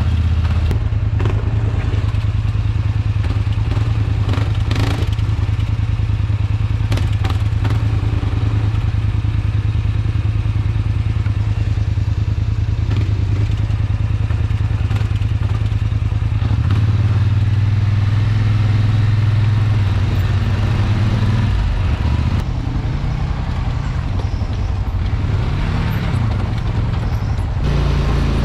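ATV engine running steadily under way on a rough dirt trail, its pitch shifting a little at times, with scattered knocks and clatter from the machine over the rocky ground.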